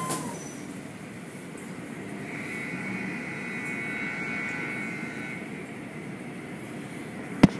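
Automatic tunnel car wash machinery running: a steady whirring rush, with a faint high whine for a few seconds midway and a sharp click near the end.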